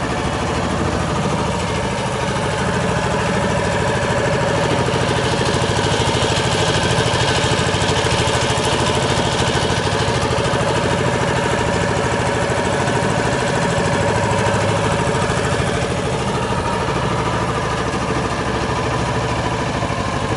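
The engine of a wooden river tour boat running steadily under way, heard from aboard. A brighter hiss swells for a few seconds in the middle.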